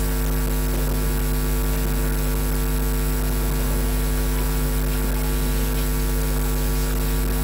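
Steady electrical mains hum: a strong low drone with several fainter steady tones above it, unchanging throughout.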